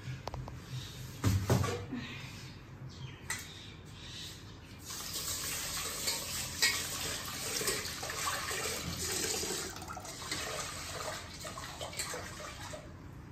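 Kitchen tap running into a steel pot at the sink, water splashing as the pot fills and is swirled. A few knocks come first, and the running water starts about five seconds in and eases off near ten seconds.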